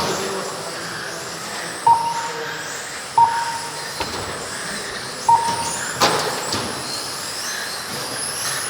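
RC racing cars circuiting the track, their motors giving a high whine that rises and falls as they accelerate and brake. Short electronic beeps from the lap-counting system sound three times as cars cross the timing line, with a couple of sharp clicks.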